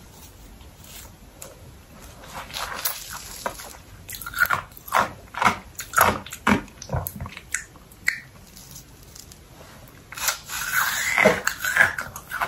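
Biting into and chewing icy slush ice cream from a cup: a run of short crunches and wet mouth clicks, with a louder cluster near the end.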